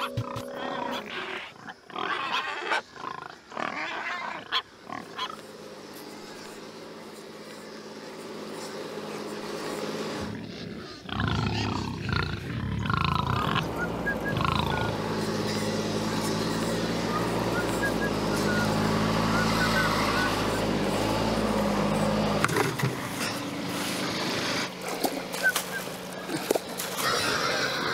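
Saddleback pigs grunting as they root in the dirt, followed by a soft held music underscore that changes chord every few seconds. Near the end a hiss of running water from a hose starts up.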